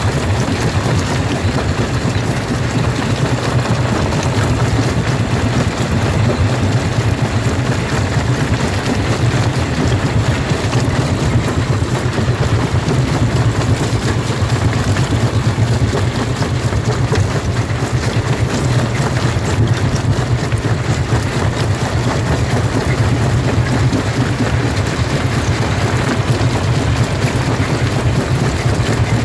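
Jaw rock crusher running and crushing stone: a loud, steady machine noise with a constant dense rattle of rock being broken.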